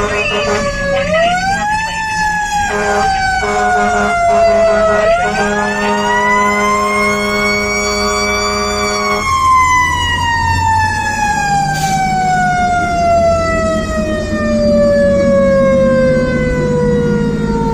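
Federal Q mechanical siren on a 2018 Pierce Saber fire engine, heard from inside the cab. It winds up, dips, winds up again to a high scream, then is released about nine seconds in and spins down in a long falling wail.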